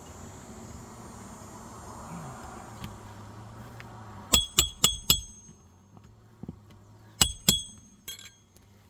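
Hammer driving roofing nails to fasten a replacement asphalt shingle: four quick strikes about halfway in, then two more and a fainter pair near the end, each with a short metallic ring.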